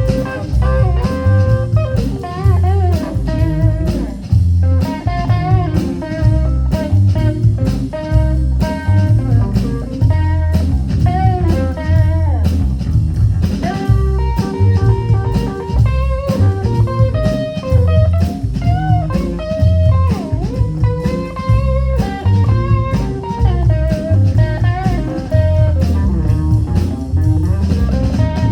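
Live blues trio playing: guitar, bass guitar and drum kit. The guitar plays bent, wavering notes over a steady bass and drum beat.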